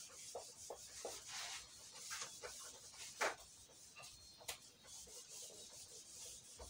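A whiteboard eraser rubbing across a whiteboard in repeated back-and-forth wiping strokes, a faint swishing with two sharper, louder strokes about three and four and a half seconds in.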